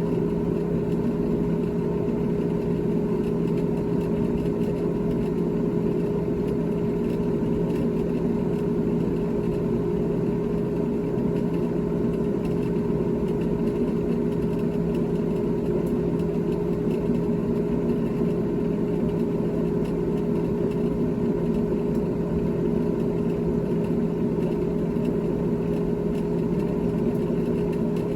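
GE top-freezer refrigerator running with a steady mechanical hum, made of two steady tones, one low and one higher, over a soft whir.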